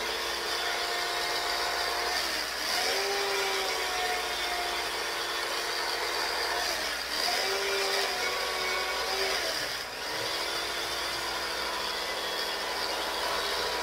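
Electric carving knife running as it slices through a roast turkey breast. It gives a steady motor hum whose pitch sags briefly three times as the blades bite into the meat, then comes back up.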